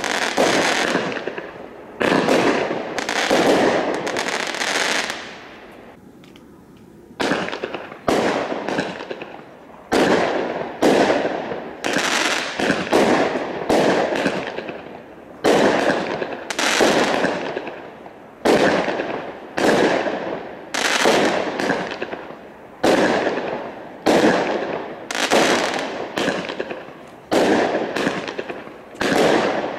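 20-shot firework cakes firing shot after shot, each a sharp report followed by a fading tail, about one a second. A short lull about six seconds in as one cake finishes and the next starts.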